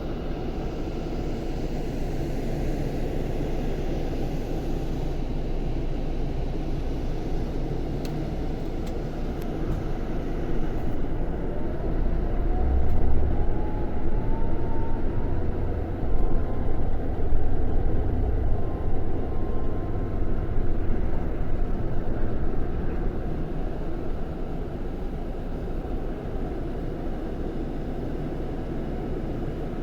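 Scania K400 bus's straight-six diesel engine running with a steady low drone. It grows louder and deeper for about ten seconds in the middle, with a faint rising whine, then settles back.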